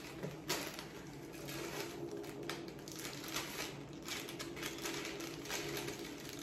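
Clear plastic bag being handled and pulled open, crinkling in irregular rustles, over a faint steady hum.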